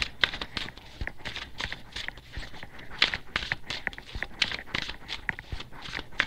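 Deck of tarot cards being shuffled by hand: a run of quick, irregular card flicks and taps, several a second.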